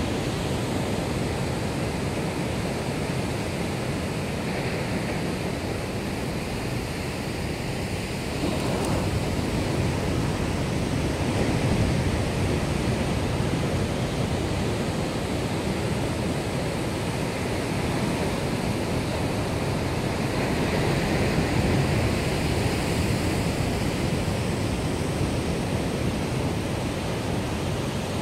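Atlantic surf breaking and washing over black volcanic lava rocks: a continuous rush of churning white water that swells as waves break, about eight seconds in and again around twenty seconds.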